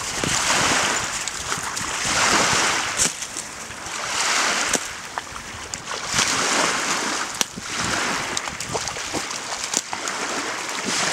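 Loch water splashing and sloshing as two Labradors bound into the shallows and swim, with small waves lapping on the shore; the noise swells and fades every couple of seconds, with a few sharp splashes now and then.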